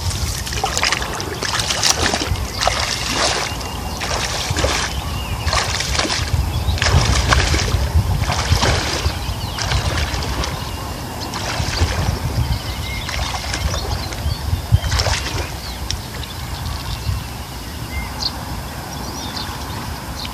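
Someone wading through shallow water, legs sloshing and splashing about once a second. The steps stop about fifteen seconds in, leaving a steady low rumble.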